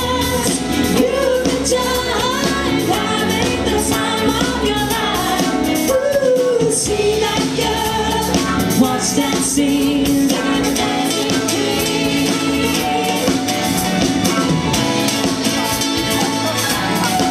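Live band playing a pop song with a sung lead vocal over acoustic and electric guitars, keyboard and drum kit.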